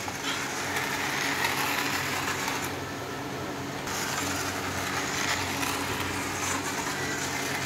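Toy bullet train running around a plastic track, its small motor whirring steadily.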